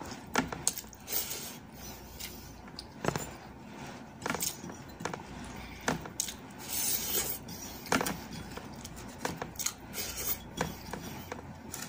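Close-up eating sounds: a person chewing with wet mouth and lip smacks, and fingers scooping rice from a bowl, heard as irregular sharp clicks and short squishy noises.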